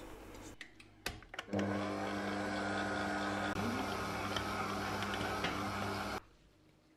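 Smeg stand mixer running, its dough hook kneading a ball of dough in the steel bowl: a steady motor hum that starts about a second and a half in and cuts off abruptly near the end. A few knocks and clicks come before the motor starts.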